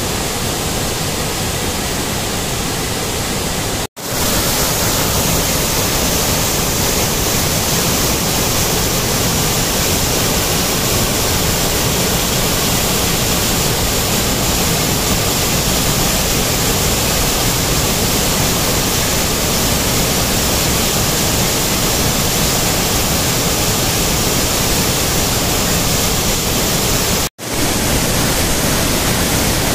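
Hogenakkal Falls on the Kaveri river roaring in heavy flow, about 35,000 cubic feet of water a second: a steady, dense rush of falling water. It drops out for an instant twice, about four seconds in and near the end.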